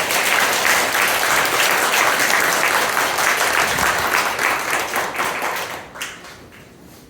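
Audience applauding: many people clapping together, dying away about six seconds in.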